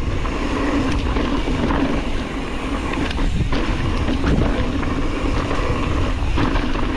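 Mountain bike rolling fast down a rocky dirt trail: wind rushing over the microphone and tyres on dirt and rocks, with scattered clicks and knocks as the bike rattles over the bumps.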